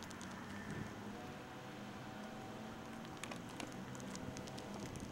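Faint handling noise and footsteps of a handheld camcorder being carried, with light scattered clicks over a steady low hum. The clicks cluster about three seconds in.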